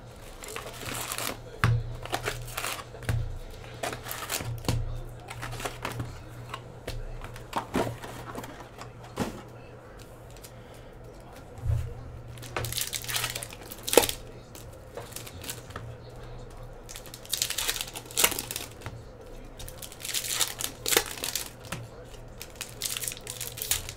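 Hockey card pack wrappers crinkling and tearing as they are ripped open by hand, in bursts of crackling with short pauses between.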